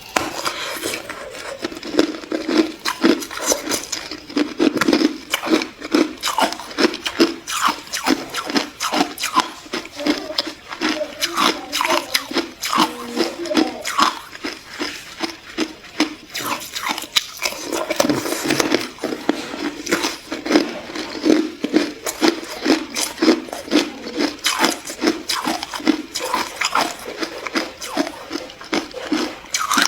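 Ice being crunched and chewed close to the microphone: a dense, fast run of crisp crunches, several a second, with a brief break a little past halfway.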